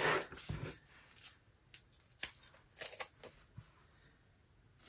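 A planner page turning and being pressed flat, then a few light paper crinkles and ticks as a printed sticker is peeled off its backing sheet.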